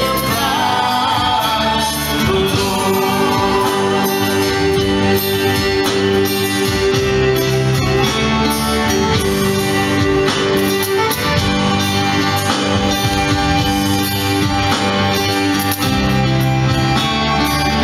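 Live acoustic band playing together: strummed acoustic guitars, fiddle, bass guitar and electric keyboard, with held notes over a steady chord pattern.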